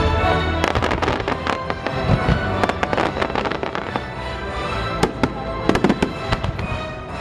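Fireworks bursting in quick succession, sharp bangs and crackles clustering most densely in the second half, over the show's music.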